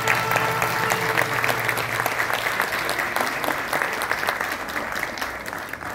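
Applause from a concert audience and performers, many hands clapping at once. A held musical note from the ensemble dies away about a second in, and the clapping thins and fades toward the end.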